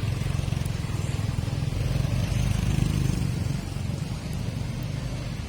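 Street traffic: a motor vehicle's engine running close by, growing louder to a peak about three seconds in and dropping off sharply just after, over the hiss of tyres on a wet road.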